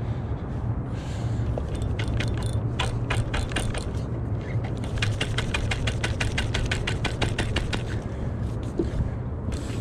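A rapid run of small mechanical ratcheting clicks, scattered at first, then even at about seven a second before stopping, over a steady low rumble.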